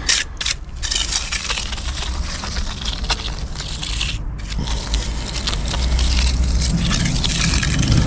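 Steel Marshalltown gauging trowel scraping back and forth across the surface of a wet concrete slab, working the cream up and taking out the tamp marks. The strokes break off briefly about four seconds in.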